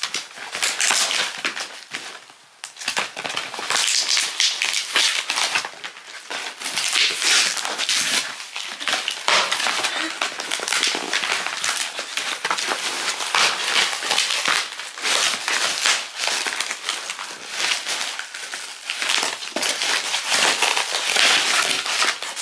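Plastic packaging and a cardboard shipping box being crinkled, pulled and torn open by hand: continuous, irregular rustling and crackling, briefly dropping off about two seconds in.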